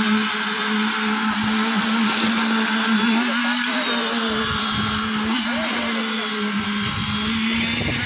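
Electric concrete needle vibrator running with a steady, unbroken hum, its poker immersed in freshly poured wet concrete.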